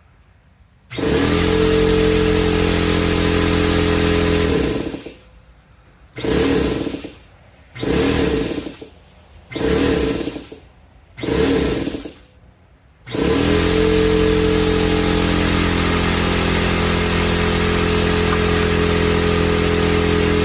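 Husky air compressor's motor and pump running for a few seconds, stopping, then switched on and off in four short runs of about a second each before starting up again and running steadily.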